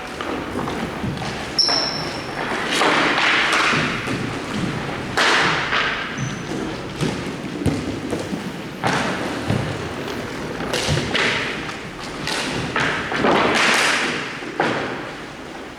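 Ice hockey play: repeated thuds and knocks with stretches of scraping noise between them, and a short high-pitched tone twice.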